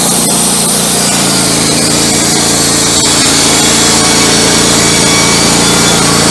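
Wood-Mizer LT15 Go portable band sawmill running at a steady engine speed, its band blade sawing through a log.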